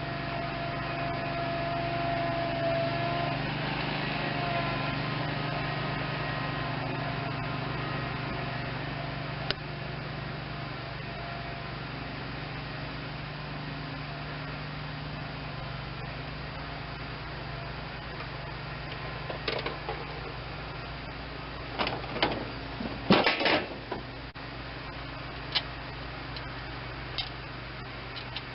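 A steady machine hum runs throughout. In the second half come a few sharp metal clanks and clicks of parts and tools being handled, the loudest cluster about three quarters of the way through.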